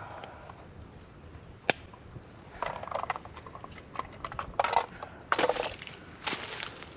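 Irregular rustling and crunching of gear being handled and moved about, with a sharp click about two seconds in.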